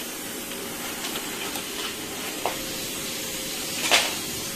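A steady hiss, with a few faint clicks and, about four seconds in, a short rattle as metal welding electrodes are pulled from their box.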